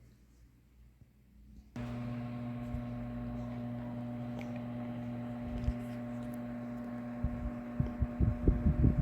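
Electric wall fan switched on: its motor starts a steady electrical hum suddenly about two seconds in. Near the end, gusts from the fan begin buffeting the microphone with irregular low thumps.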